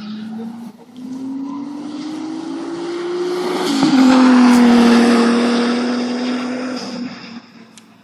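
Turbocharged V6 engine of a Toyota MR2 race car at full throttle on a straight, its note rising steadily, then dropping suddenly at a gear change a little under four seconds in. It is loudest just after the shift and fades away near the end.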